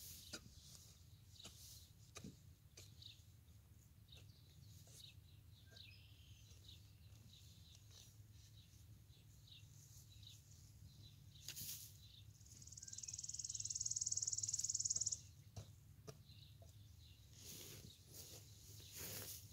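Soft scrapes and taps of a shovel and gloved hands working loose garden soil and pulling weeds, over a steady low hum. Past the middle, a high, buzzy trill swells for about three seconds and cuts off sharply; it is the loudest sound here.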